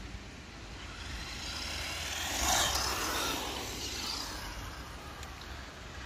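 WLtoys 12428 1:12 RC truck's electric motor and tyres running on skate-park tarmac, getting louder to a peak about two and a half seconds in, then fading.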